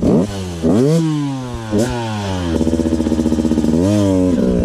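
Dirt bike engine revving in several rising blips, then held steady before rising again about four seconds in, as the bike is throttled up a steep rock step.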